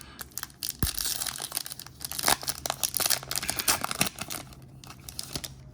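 Foil trading-card pack wrapper crinkling and tearing as it is ripped open by hand, a dense run of crackles that thins out near the end.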